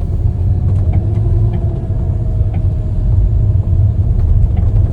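Mercedes-Benz SLK55 AMG driving, a steady low rumble of tyres and engine with a few faint light ticks. That ticking over bumps is what the workshop traced to perished anti-roll bar links and bushings.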